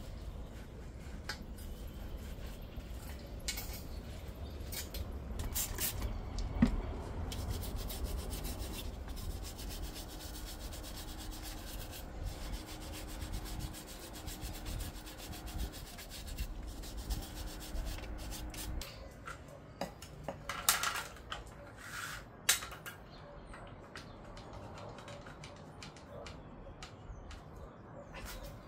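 Hand work on a car's rear suspension: parts and tools rubbing and scraping, with scattered sharp clicks and a few louder knocks near the end. A low rumble underneath stops about two-thirds of the way through.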